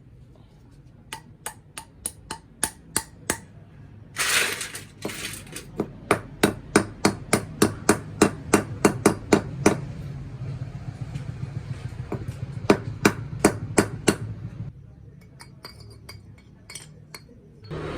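Repeated sharp hammer blows on metal, about two or three a second, in several runs, during work on a lathe tool attachment. A brief rush of noise comes about four seconds in, and a low steady hum sits under the later blows.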